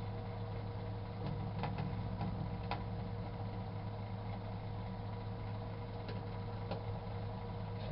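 Microwave oven running with a steady hum, and a few sharp clicks about one to three seconds in and again around six to seven seconds in.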